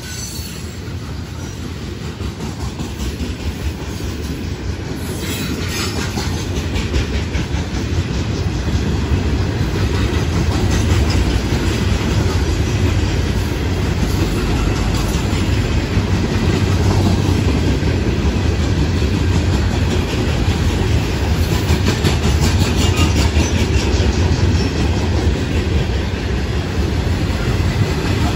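Loaded freight cars of a rock train (open-top gondolas and hoppers) rolling past: a steady rumble of steel wheels on rail with clickety-clack over the joints. It grows louder over the first ten seconds or so, then holds.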